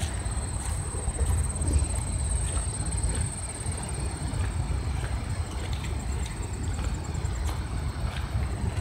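Footsteps on a gravel path over a steady low rumble, with a faint high steady whine.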